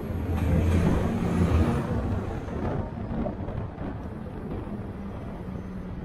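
City bus running and rolling along the road, heard from inside: a steady low engine hum with tyre and road noise, louder for the first two seconds and then easing off.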